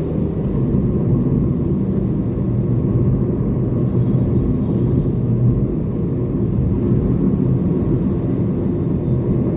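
Toyota Corolla being driven at a steady pace, its engine and tyres making a constant low rumble heard from inside the cabin.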